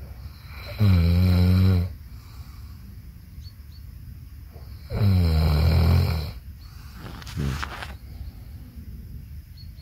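A man snoring in his sleep: two long, loud snores about four seconds apart, then a shorter, fainter one near the end.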